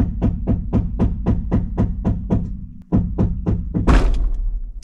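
Background music with a steady clicking percussive beat, about four beats a second over a low bass bed. It breaks off for a moment past the middle, then ends in a loud crash-like hit.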